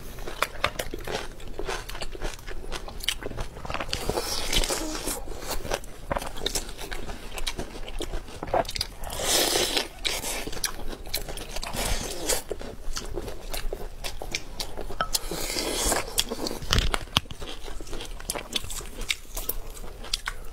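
Close-miked eating: people biting and chewing roast chicken, a steady run of small chewing clicks with louder crunchy bites at a few points several seconds apart.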